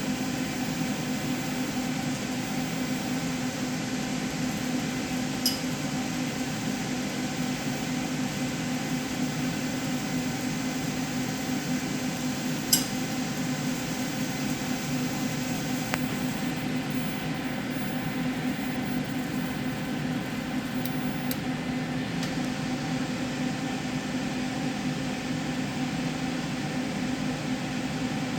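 Steady machine hum with an even hiss, broken by a couple of sharp ticks.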